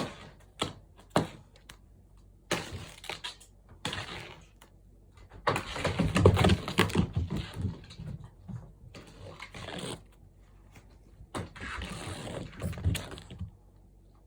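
Cats playing with a feather wand toy: scattered knocks and thumps with bursts of scuffling and rustling, busiest and loudest in the middle.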